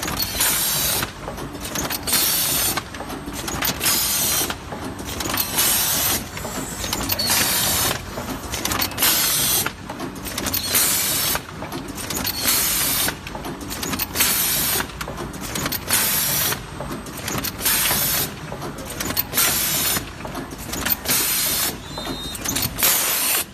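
Horizontal premade-pouch filling and sealing machine running. Its pneumatic cylinders give short, regular hisses of air over a steady mechanical clatter, repeating in a fast, even cycle.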